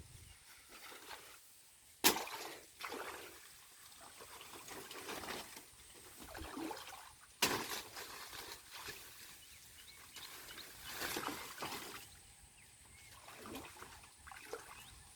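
Water sloshing and trickling in irregular swells, with two sharp knocks about five seconds apart.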